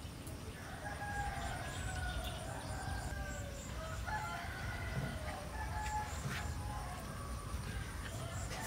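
Rooster crowing, a long call starting about a second in followed by shorter calls, over a steady low rumble.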